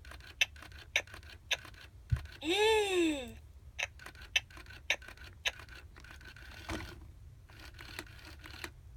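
2009 Baby Alive My Real Baby doll's animatronic face mechanism clicking about twice a second as it sucks on its toy bottle. About two and a half seconds in, the doll gives one short baby sound that rises and then falls in pitch.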